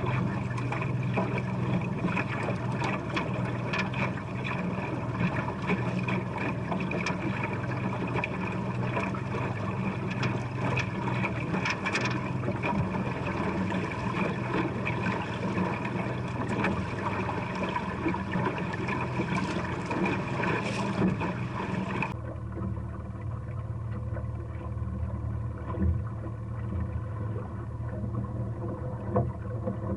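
Boat motor running steadily. About two-thirds of the way through, the higher part of the sound cuts off abruptly, leaving a lower steady hum.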